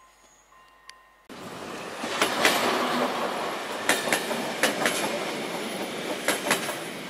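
A level-crossing warning signal rings faintly in repeated tones for about the first second. It is then cut off by a passenger train of a ČD class 854 diesel railcar set passing close by, its wheels clattering over the rail joints in pairs of clicks, one pair per bogie, four pairs in all.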